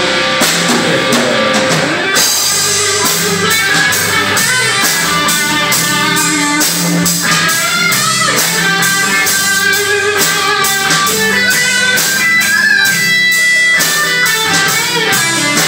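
Live band playing an instrumental break of a rock ballad: a lead guitar plays a gliding melody over strummed guitar, bass and drums.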